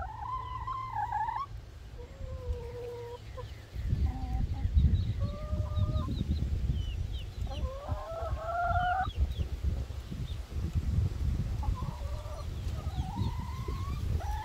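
Hens clucking and giving several drawn-out, wavering calls while they feed, over a steady low rumble.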